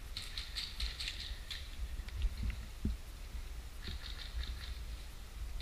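Soft crunching and scuffing of a player's footsteps and gear rustling, in short clusters of crisp ticks during the first second and a half and again around four seconds in, over a low rumble from handling of the body-worn microphone.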